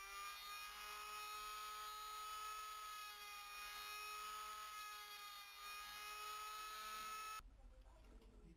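Small electric rotary tool with a cutting disc whining as it cuts into the metal lid of a corroded cylinder, its pitch wavering slightly under load. It stops abruptly about seven seconds in.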